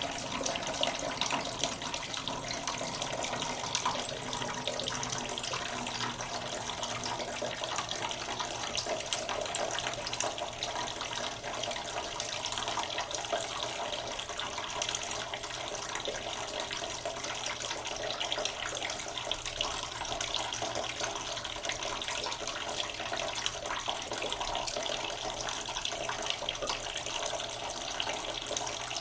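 Tap water running slowly into a cooking pot in a kitchen sink, a steady splashing trickle.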